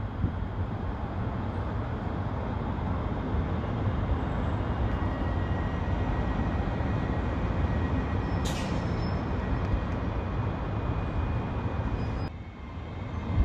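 Hitachi class 385 electric multiple unit running into the station: a steady rumbling wash of noise with a faint whine, and one short hiss about eight and a half seconds in. The noise drops suddenly about twelve seconds in.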